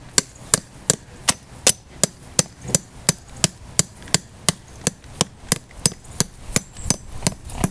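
A plastic tent stake being hammered into the ground through a hay net, with steady, evenly spaced strikes about three a second.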